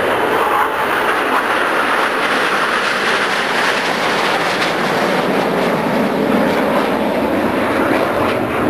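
Jet noise from the Frecce Tricolori's formation of Aermacchi MB-339 trainers, each powered by a single turbojet, passing overhead as a steady loud roar. The sound deepens toward the end.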